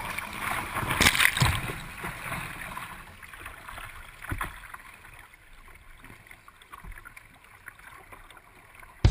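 River water rushing and splashing against the bow of a boat running a riffle, loudest about a second in as spray breaks over the bow. It then dies down to a quieter wash as the water calms.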